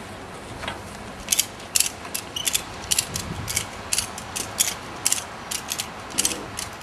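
A run of sharp, irregular clicks, about three a second, starting about a second in.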